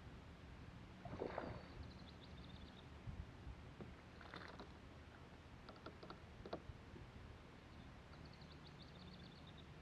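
Faint splashes of a hooked bass thrashing at the surface as it is reeled to the boat, a few brief splashes over a steady low hum, with two short runs of quick high ticking.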